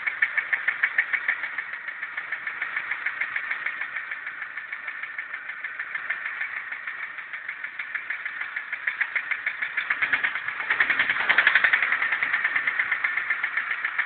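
ZMZ-406 four-cylinder petrol engine idling with a rapid, even knock, several beats a second. The knock appeared after a cold morning start and its cause is unknown. It grows louder for a couple of seconds about ten seconds in.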